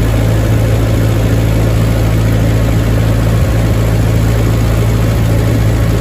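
Ford 8N tractor's four-cylinder flathead engine running at a steady speed while the tractor drives along, a loud even low hum with no revving.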